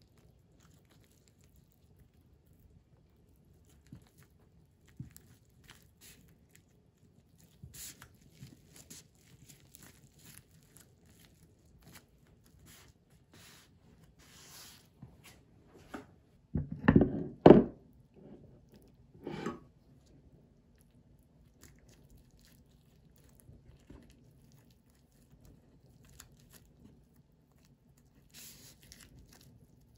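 Dry roasted seaweed (gim) sheets crinkling and crackling as gimbap is rolled and pressed by hand. A few loud, dull knocks come a little past halfway and are the loudest sounds.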